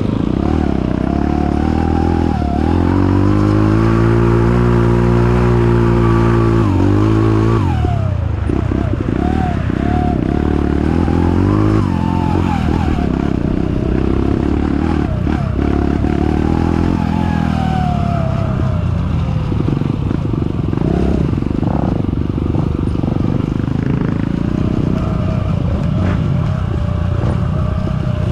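Kawasaki KLX trail bike's single-cylinder four-stroke engine being ridden, revving up and held high for a few seconds, then dropping off sharply and rising and falling again. A thin whine runs over the engine throughout, the strange noise the owner likens to an electric motorcycle.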